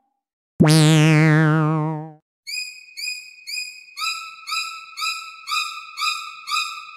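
A sudden electronic sound effect: a held buzzy tone with a wavering vibrato lasting about a second and a half. It is followed by synthesizer music, short repeated notes about two a second, that builds up in layers.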